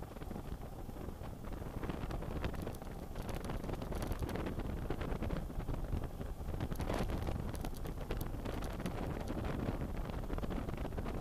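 Wind rushing over the microphone of a BMW F800GS motorcycle on the move, with the bike's running sound underneath and scattered short crackles.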